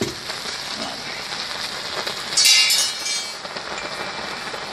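Water-soaked hydrogel beads seething and crackling around freshly poured molten aluminium as the water boils off into steam, with a brief louder hiss of steam about two and a half seconds in.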